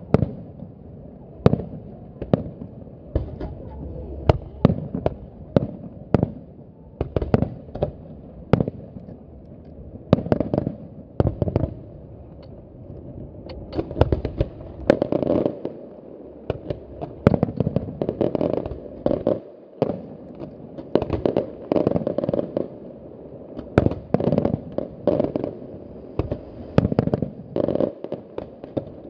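Aerial fireworks display: shells bursting in rapid, irregular succession, many sharp bangs over a continuous lower noise, with dense clusters of bangs in the second half.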